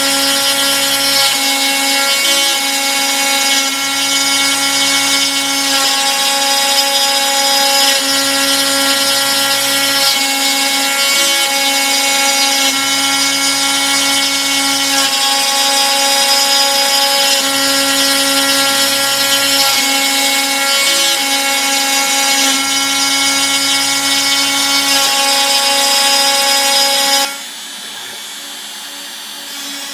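Bosch Colt router running as the spindle of a Probotix X90 CNC router, its 1/8-inch single-flute end mill milling a pocket in scrap Ikea shelving board: a steady high motor whine over cutting noise, with a low hum that comes and goes about every four to five seconds. The sound drops noticeably near the end.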